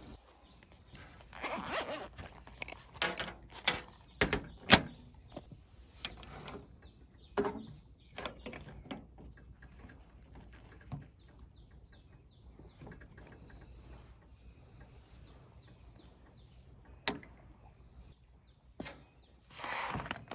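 Camping gear being handled: scattered knocks and clicks, with rustling about a second and a half in and again near the end. Faint high chirps of birds sound in the background.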